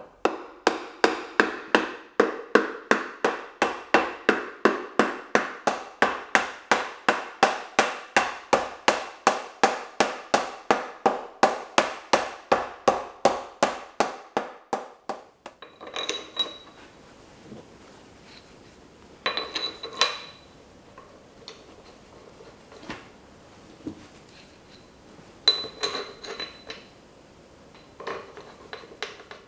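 A hammer striking a brass drift to drive a tapered roller bearing down onto a cast-iron chuck hub: a steady run of sharp metal knocks, about three a second, for roughly fifteen seconds. After that come only a few scattered clinks of metal with a short ringing tone.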